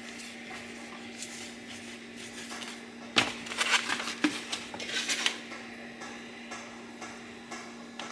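Kitchen cookware and utensils clattering: a run of sharp clinks and knocks from about three seconds in to past five seconds, the loudest at the start, over a steady low hum.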